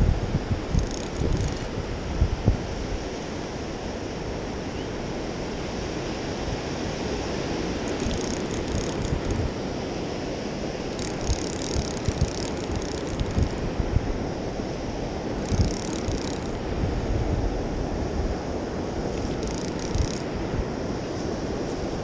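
Wind buffeting the microphone over steady surf wash on the shore, with several short spells of high whirring from a spinning reel being cranked.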